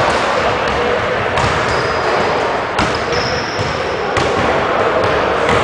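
Basketballs bouncing on a hardwood gym floor, several sharp thuds about a second and a half apart, over a steady, echoing background of a busy gymnasium.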